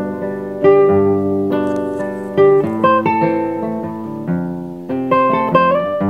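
Background music: an acoustic guitar playing a melody, its plucked notes ringing on, a few of them bending slightly in pitch.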